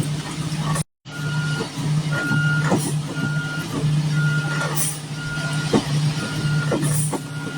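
A truck's backup alarm beeps about once a second over its steady running engine, with scattered knocks; the sound drops out briefly about a second in. On a concrete pour this is most likely the concrete truck backing up.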